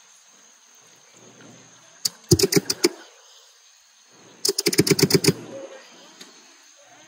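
Breathing through a BLUE3 Nemo hookah diving regulator just after its air supply has come on: two fluttering, rattling bursts of about a second each, a second and a half apart.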